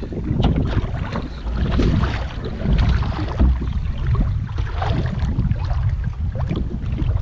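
Strong wind rumbling on the microphone, with choppy waves splashing and slapping against a canoe hull as it is paddled through rough water.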